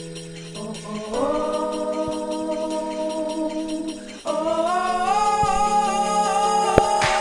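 Background music: held chords with a singing voice. The chord changes about a second in and again about four seconds in.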